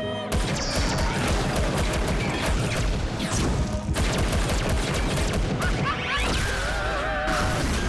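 Cartoon slapstick sound effects: a fast, continuous clatter of crashes and impacts over music, with a wavering pitched sound in the last second and a half.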